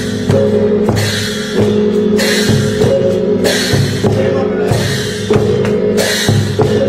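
Klong sabat chai, the large Lanna drum, beaten hard with tasselled sticks in a pattern of heavy strokes about once a second. Underneath, steady ringing tones from accompanying gongs.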